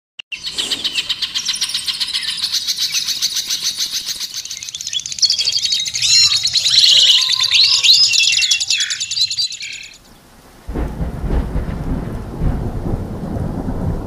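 Caged songbirds singing a rapid, busy high-pitched song full of quick trills and sweeping notes. It stops about ten seconds in, and after a short pause a low, dense rumble starts and carries on.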